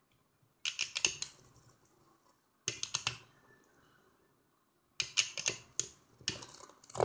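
Two spinning Beyblade tops clashing in a cardboard stadium: quick clusters of sharp clacks as they strike each other, four times, with near quiet in between.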